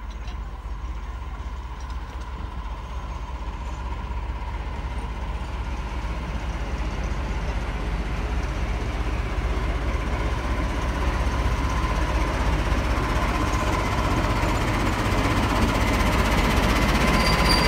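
Small diesel locomotive running slowly into the station, its engine growing steadily louder as it draws near and passes close by. A thin, steady whine sits over a low rumble throughout.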